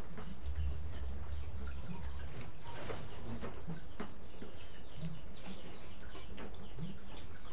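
Chickens calling around the house: many short, high, falling chirps in a quick run, over a steady hiss.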